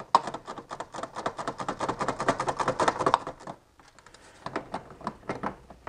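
Socket ratchet clicking rapidly as a loosened bolt is run out. The clicking stops for about a second partway through, then resumes more sparsely.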